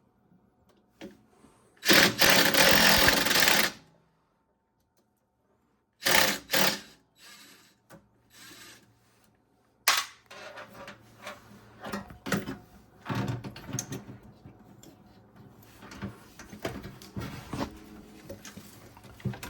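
Repair work at the back of a washing machine, opening it up to reach the motor: a loud rasping burst of about two seconds near the start, two short scrapes a few seconds later, then a long run of clicks, knocks and rattles of parts and tools being handled.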